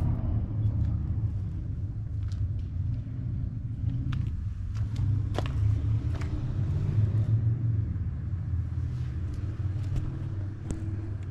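A low, steady rumble with a few faint, sharp clicks scattered through it.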